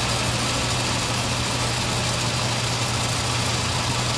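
Steady machine hum, a constant low drone under an even hiss, running without change.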